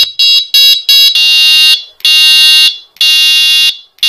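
Electronic siren of a rechargeable bicycle headlight-and-horn unit sounding loud, high beeps. Short rapid beeps, about three a second, change about a second in to longer steady beeps about one a second, as the handlebar switch steps it to its next sound pattern.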